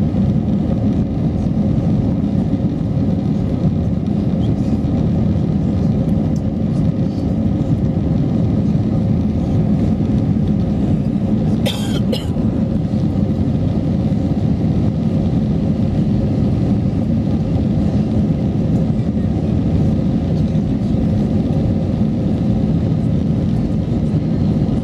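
Steady in-cabin noise of an Airbus A321-200 in its climb after takeoff: a constant low roar of the engines and rushing air, with a faint steady hum in it. A brief sharp sound breaks in once, about halfway through.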